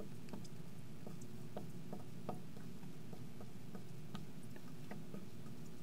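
Faint, irregular ticks and taps of a marker tip writing on a glass lightboard, over a steady low room hum.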